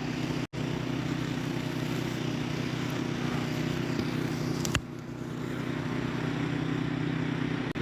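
A steady, low motor hum, like an engine idling. It drops out for an instant about half a second in, and there is a short click a little before five seconds in.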